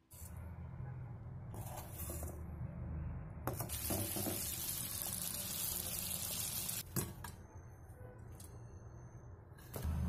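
Batter-coated chicken deep-frying in hot oil: a dense, steady sizzle that starts suddenly about three and a half seconds in and cuts off about seven seconds in, over a low hum, with a few clicks before and after.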